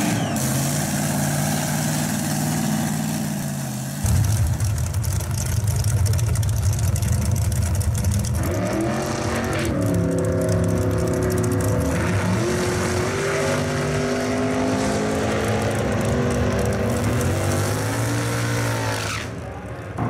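Drag racing cars' engines running at the strip: a steady idle, then much louder from about four seconds in, with the pitch rising and falling repeatedly from about eight seconds as they are revved, easing off near the end.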